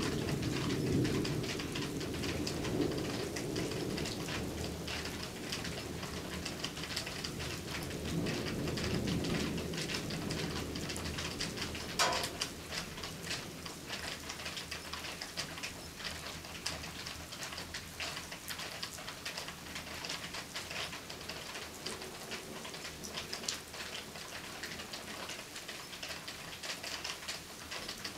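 Steady thunderstorm rain, with many separate drops ticking. A low rumble of thunder swells near the start and again about nine seconds in, then dies away. One sharp click comes about twelve seconds in.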